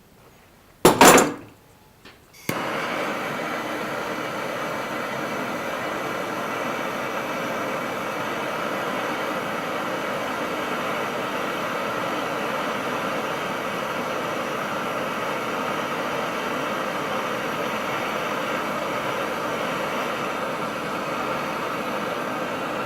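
A short, loud clatter about a second in. Then, about two and a half seconds in, a gas burner comes on and hisses steadily, heating the railroad spike for bending.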